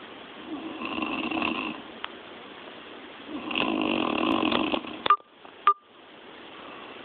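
A woman snoring loudly in her sleep: two long snores about three seconds apart, followed by two sharp clicks.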